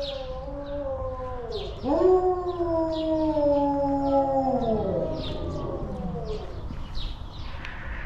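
Wolf howling: one long howl slides down and ends about two seconds in, then another rises, holds steady and falls away about five seconds in. Short high chirps sound over it.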